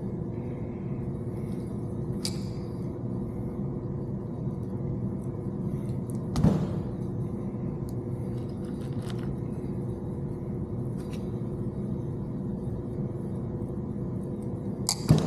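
A few sharp clicks and one louder knock from crimping-tool and harness work, over a steady low hum.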